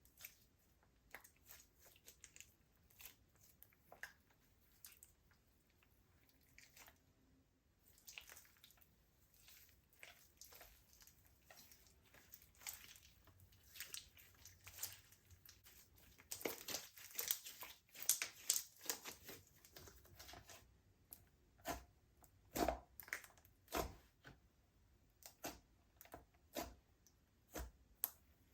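Slime being mixed and pressed by hand: faint scattered sticky clicks, pops and crackles, coming thickest about halfway through.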